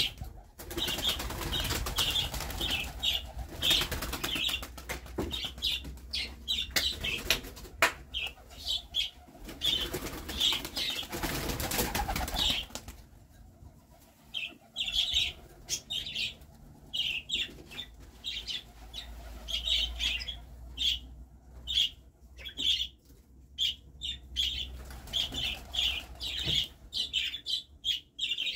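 Pigeons flapping their wings, with repeated short high chirps. It is busier and louder for the first dozen seconds, then thinner.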